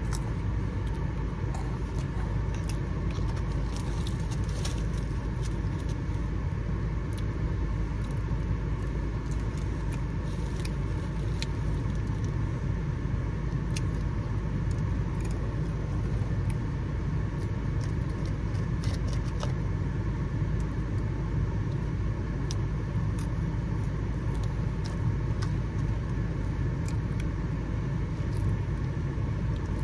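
Steady low rumble of a parked car running, heard from inside the cabin, with scattered short clicks and crunches from someone eating a snack.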